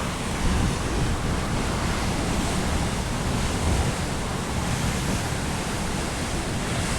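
Wind buffeting a smartphone's microphone: a loud, steady rumble and hiss with no let-up.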